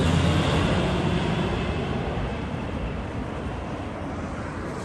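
Low-flying plane, which he takes for an RAF aircraft, roaring past very close and fading away steadily as it moves off.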